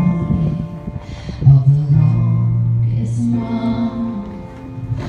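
A woman singing into a microphone through a PA system with guitar accompaniment, holding long notes.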